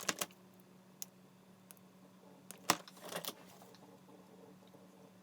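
A few light clicks and rattles of small hard objects being handled, loudest a little past halfway, over a steady low hum.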